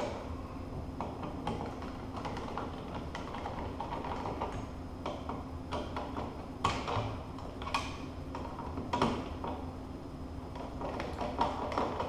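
Hand screwdriver turning the mounting screws of wall switches into a metal electrical box, with scattered short clicks and scrapes of metal on metal.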